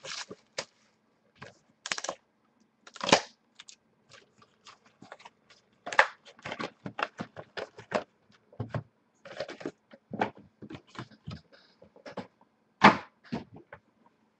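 Hands unwrapping a shrink-wrapped box of 2014 Topps Museum Collection baseball cards, opening the cardboard box and setting the packs down on the table: an irregular run of plastic crackles, rustles and clicks, the sharpest about six seconds in and near the end.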